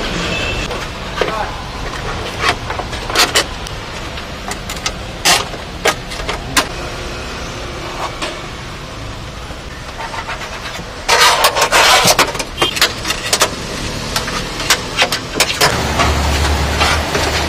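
Nissan Serena Highway Star's power sliding door mechanism clicking and knocking as it is worked on, with a loud rattling burst about two-thirds of the way through and a steady low motor hum setting in near the end.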